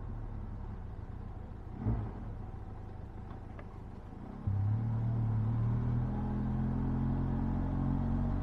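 Motorcycle engine running low and steady while riding, then opening up about four and a half seconds in, the engine note getting louder and holding steady.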